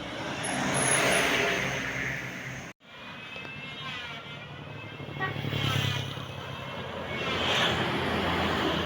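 Tour buses in a convoy passing close by. Engine and tyre noise swells and fades about three times, with a sudden dropout to silence a little under three seconds in.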